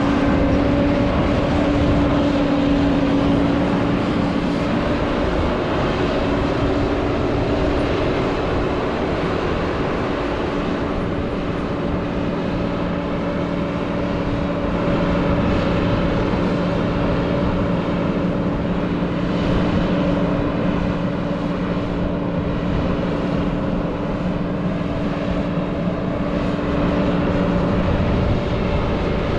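John Deere 9600 combine running steadily under harvest load, a constant engine and machinery drone with a steady hum.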